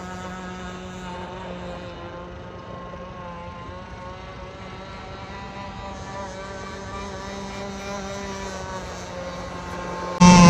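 Gas-engined RC racing boat running flat out at a distance, a buzzing engine note whose pitch wavers slightly as the boat carves around the lake. Near the end the engine sound jumps suddenly much louder and closer.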